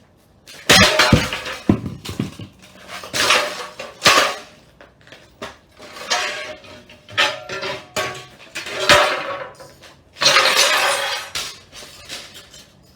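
A steel PC case being smashed: about eight loud, irregularly spaced blows, each followed by clattering and crunching from its metal panels and shards of shattered tempered glass.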